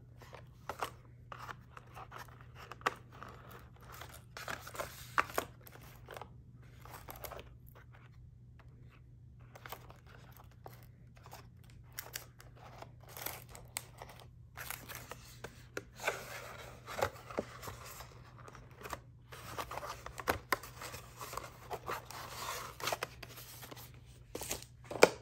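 Plastic packaging crinkling and rustling in irregular bursts, with sharp crackles and tearing, as packs of washi tape and stickers are handled and unwrapped.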